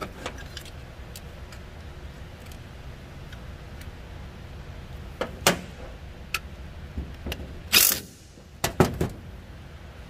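Scattered clicks and knocks of parts and tools being handled, over a low steady hum. A louder scraping clatter comes just before eight seconds in, followed by a few quick knocks.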